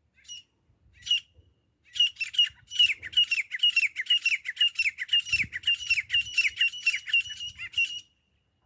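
Grey francolin calling: a couple of single notes, then from about two seconds in a fast, even run of loud, repeated downward-sliding notes, about three to four a second, that stops shortly before the end.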